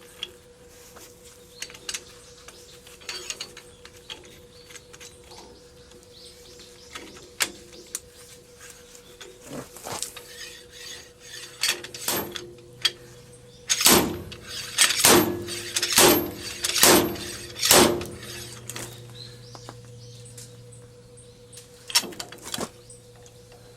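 Metal tools and parts clinking, then a run of about six hard metal strikes roughly a second apart, each ringing briefly, with two more strikes near the end: work on the tractor's front axle parts.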